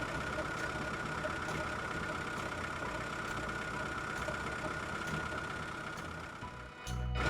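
Small motor of a homemade mini tractor running steadily, a constant high whine over a low rumble, with a brief dropout near the end.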